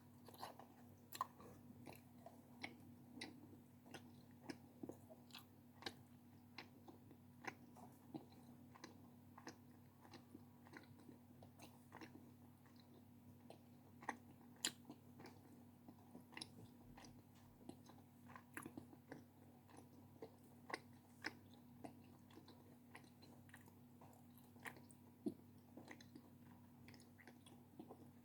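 Close-miked chewing of confectionery: soft, scattered crunches and mouth clicks, several a second and irregular, over a faint steady hum.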